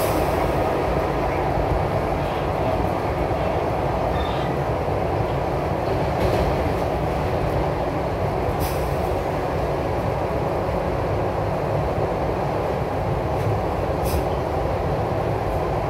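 SEPTA Broad Street Line subway train running at speed through a tunnel, heard from inside the car: a steady rumble of wheels on rail, with a few sharp clicks along the way.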